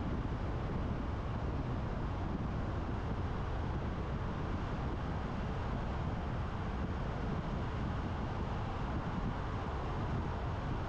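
Steady road noise of a car driving, the rumble of tyres and wind with no changes or distinct events.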